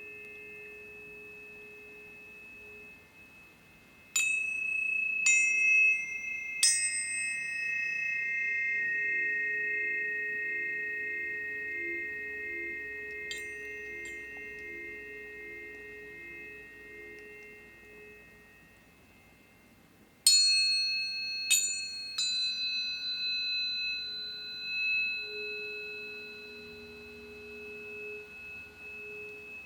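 Tuning forks struck one after another: a cluster of three strikes about four to seven seconds in and another three around twenty to twenty-two seconds in. Each strike is a bright metallic ping followed by a long, pure, ringing tone that slowly fades, with several pitches overlapping. A soft low tone wobbles slowly underneath in the middle stretch.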